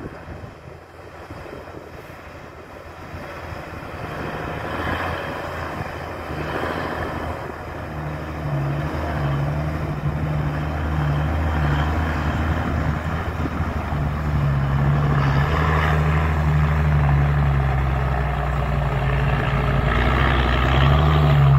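Dump truck's Isuzu 6HK inline-six diesel, converted to an inline injection pump and fitted with a big turbo, running under way and growing steadily louder as the truck approaches. The engine note drops back briefly about twelve seconds in, then picks up again and is loudest near the end.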